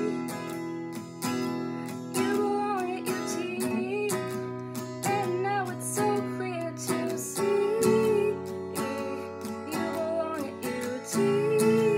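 Acoustic guitar strummed in a steady rhythm, with a woman singing along over it.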